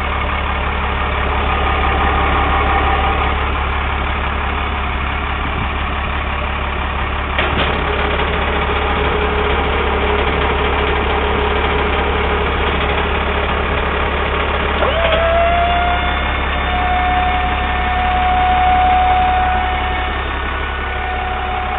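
Dodge 3500's Cummins diesel engine idling steadily, with a single click about seven and a half seconds in. From about fifteen seconds in, the dump body's hydraulic pump motor whines steadily as it raises the bed.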